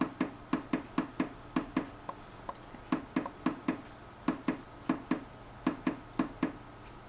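Bodystat QuadScan 4000 analyser's keypad button being pressed again and again, a run of short sharp clicks about two to three a second, often in quick pairs, as the menu is stepped through. The clicks stop shortly before the end.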